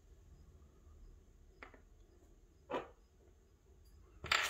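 Parts of a brass tubular lock core clicking as they are handled and set down on a plastic parts tray: a few separate small clicks, the loudest near the end.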